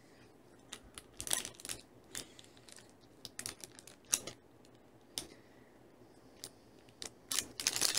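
A clear plastic candy wrapper crinkling and crackling between the fingers as a hard candy is unwrapped. It comes in irregular bursts of sharp crackles, and the loudest flurry comes near the end.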